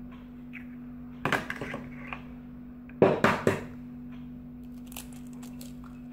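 Raw eggs being cracked against the rim of a plastic mixing bowl: a quick group of taps and shell cracks about a second in, and a louder group about three seconds in. A steady low hum runs underneath.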